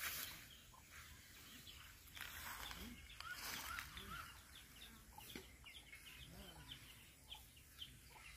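Faint bird calls: a few low rising-and-falling calls like a hen clucking, and many quick high chirps through the second half. Light rustling of cut grass and vines being handled sits under them.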